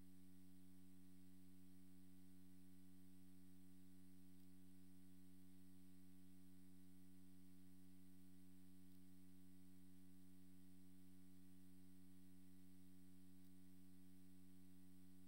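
Near silence, with a steady electrical hum made of several fixed low tones that does not change.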